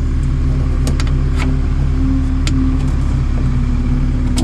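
A steady low machine hum, with a few light clicks from fingers working a small retaining clip inside a car door.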